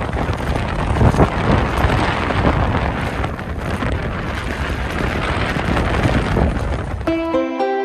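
Wind buffeting the action camera's microphone on a moving bicycle, a loud, rough rushing noise. Near the end it cuts to music with steady sustained notes.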